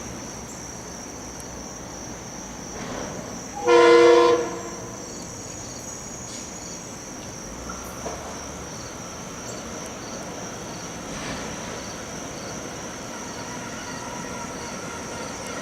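Horn of a Metro-North M-1 electric train sounding one short blast about four seconds in. Underneath runs a steady high-pitched tone, and a fainter whistling tone comes in about halfway through.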